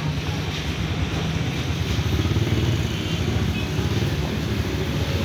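Steady low rumble of motor-vehicle engines running close by, growing a little louder about two seconds in.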